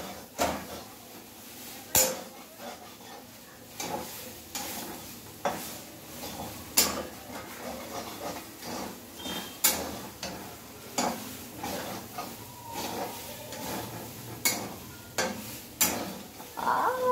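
Metal spatula scraping and clinking against a kadhai as soya chunks are stirred and fried, in irregular strokes about once a second, with a steady faint sizzle of frying underneath.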